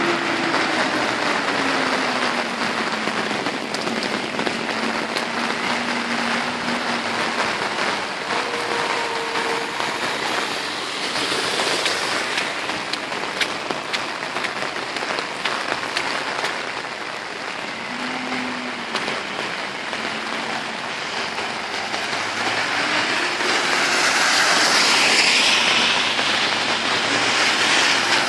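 Heavy typhoon rain pouring onto pavement and road in a dense, steady hiss, with faint sounds of cars passing on the wet road. The rain grows louder near the end.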